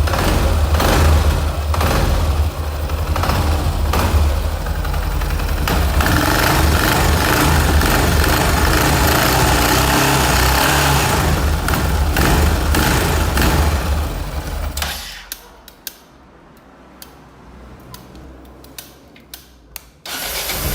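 Yamaha XT 660's single-cylinder four-stroke engine running with a rattle of sharp clicks over it, the noise the title puts down to a loose nut. About three-quarters of the way through the engine sound drops away, leaving a few faint clicks, and loud sound returns just before the end.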